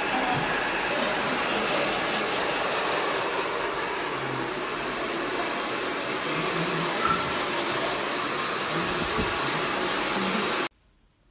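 Several handheld hair dryers blowing at once on a client's hair, a steady loud rushing whoosh that cuts off suddenly near the end.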